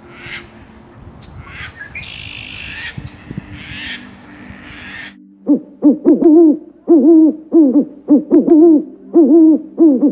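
Terns calling over the wash of surf, then, about five seconds in, an owl hooting in a quick run of short, loud hoots, each one rising and falling in pitch.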